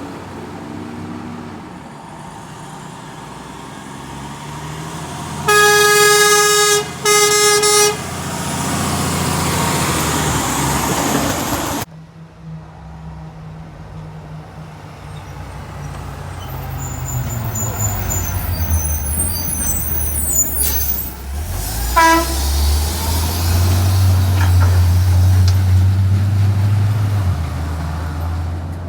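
A truck's air horn sounds two loud blasts in quick succession, the first longer than the second, followed by the rush of the truck passing. After a sudden cut, another truck's engine runs and grows louder, with a short horn toot partway through.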